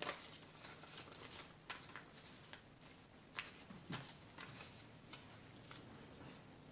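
Paper printout being folded and creased by hand: faint scattered rustles and crinkles with a few sharper crackles.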